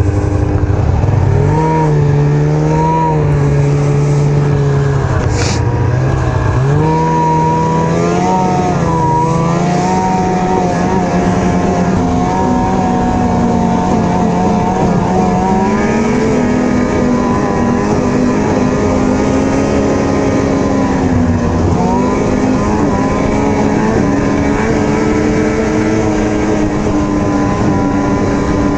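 Ski-Doo Rev snowmobile engine running under way, its pitch climbing and easing as the throttle is worked. The revs dip and pick up again about six seconds in and again near the twenty-two-second mark, over a steady rush of wind and track noise.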